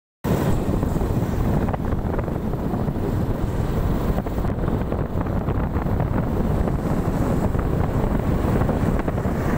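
Heavy wind buffeting on the microphone of a moving motorcycle, a dense steady low rumble with no clear engine note.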